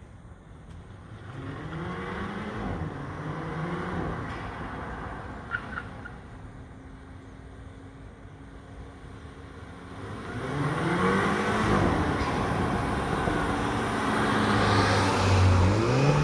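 A 2015 Mini Cooper S F56's stock 2.0-litre turbocharged four-cylinder accelerating twice. Each time the revs climb and drop back through gear changes, with a steadier stretch of running in between.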